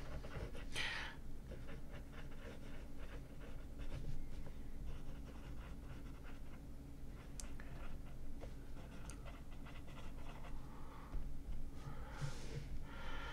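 Medium steel nib of a Lamy Vista fountain pen scratching faintly across lined notebook paper as a line of cursive is written.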